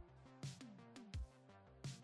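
Quiet background music with an electronic beat: kick and snare-like hits about every two-thirds of a second over sustained chords.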